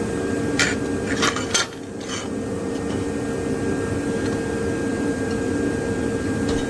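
Steady hum of a running shop heater, with a few short scrapes and clinks of metal pieces being handled in the first couple of seconds.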